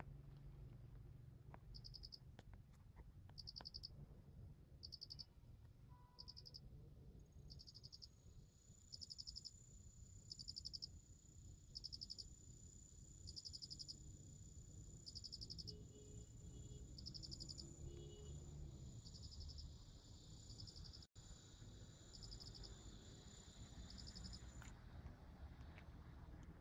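Faint insects chirping: a short pulsed chirp repeats about every second and a half, and a steady high thin trill from a second insect joins about seven seconds in and stops near the end, over a low rumble.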